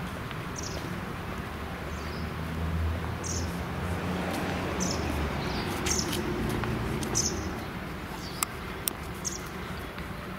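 A small bird chirping repeatedly, short high chirps about once a second, over steady low background noise, with a few sharp clicks in the second half.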